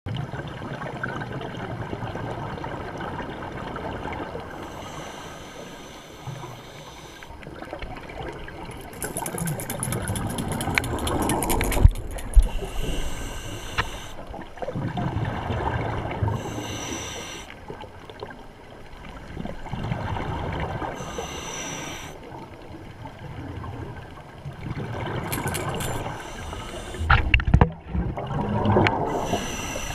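Underwater sound picked up through a GoPro Hero 3+ Black housing: a scuba diver's regulator breathing, with muffled bubbling exhalations every few seconds and hissy inhalations between them. A few sharp clicks near the end.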